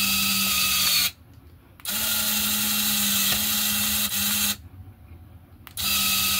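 Small electric motor and Meccano gearing of a model traction engine whining in three bursts of about two seconds each, switched on and off by radio remote control to work the steering.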